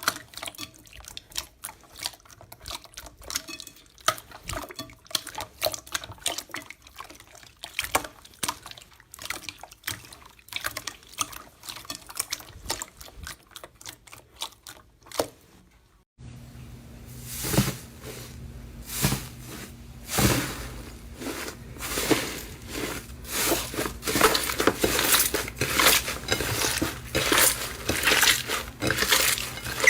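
Slime being squished and worked by hand, a dense run of wet clicks and squelches. About halfway through it breaks off for a moment, then goes on louder over a low steady hum.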